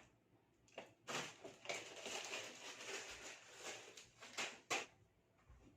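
Rustling with a few sharp clicks, from about a second in until near the end: things being handled while food is prepared.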